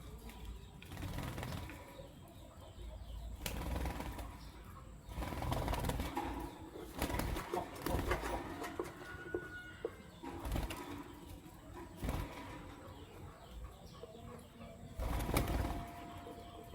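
Masked lovebirds flapping their wings and moving about, in several noisy bursts a few seconds apart.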